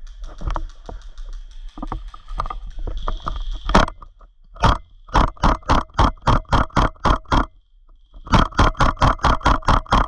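Airsoft gun firing two long strings of shots, about five a second, with a short pause between them. Before them, a few seconds of scattered knocks and rustling.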